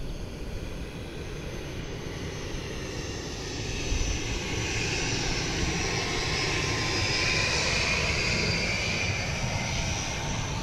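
ATR 72 turboprop airliner on final approach flying past, its two Pratt & Whitney PW127 turboprop engines whining. The sound swells about four seconds in, stays loud through the middle and eases slightly near the end.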